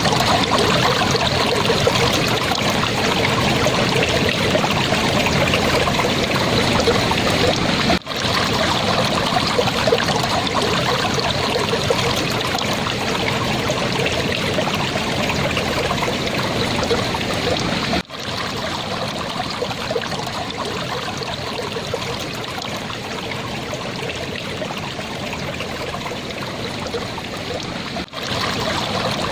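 Clear water flowing and babbling steadily. The sound drops out for a split second three times, about every ten seconds.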